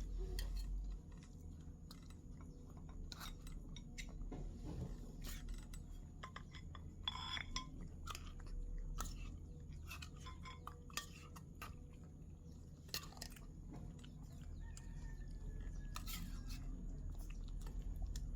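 A cat chewing its food, with irregular small clicks of the bites.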